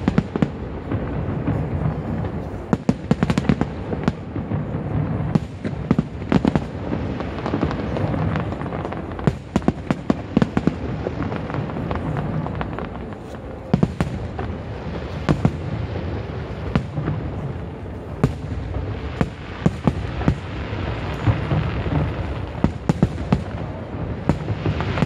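Fireworks show: a dense barrage of shell bursts and crackle. Many sharp bangs, several a second at times, go off over a continuous low rumble.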